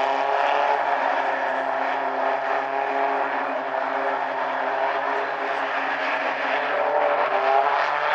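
Several four-cylinder mini stock race cars running at speed together in a pack, their engine notes layered into one steady sound whose pitches waver slightly as the cars circle.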